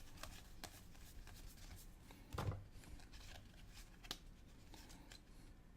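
Faint clicks and rustles of trading cards being handled and slid past one another, with one slightly louder soft sound about two and a half seconds in.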